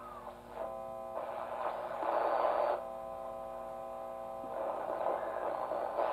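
A 1925 RCA Radiola IIIa's loudspeaker giving hiss, static and a steady hum while its dials are turned. A whistle slides up at the start, and a steady buzzing tone sits in the middle between louder rushes of static: the regenerative set is sweeping across stations on its WD-11 tubes.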